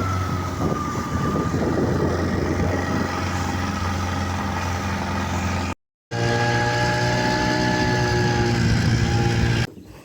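Soviet Vikhr two-cylinder two-stroke outboard motor running steadily on test. The sound drops out for a moment about halfway through and cuts off just before the end.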